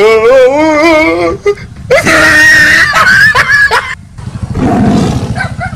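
A voice wailing with a wavering, rising pitch, then about two seconds in a loud scream lasting about a second. A low, noisy rumble follows near the end.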